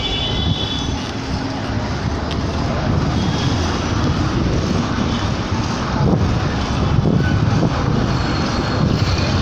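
Steady street traffic noise heard while moving along the road, with wind rumbling on the microphone.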